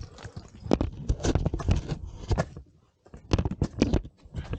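Ice axes and crampons striking and biting into waterfall ice: a run of irregular sharp knocks and crunches, with a short pause about three seconds in.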